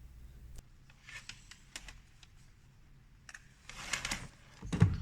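Clicks and scratchy rustling from handling a digital multimeter and its test leads, with a louder thump near the end.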